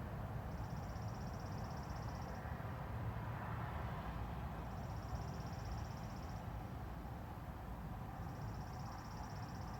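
Quiet background: a low steady hum, with a faint high pulsing trill that comes three times, each lasting about two seconds.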